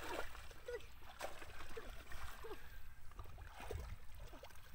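Hands working in wet mud and muddy water, squelching and sloshing again and again while groping for a fish in a flooded hole.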